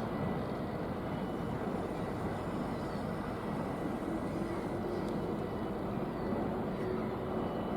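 Steady distant engine rumble, with a faint low hum in the middle.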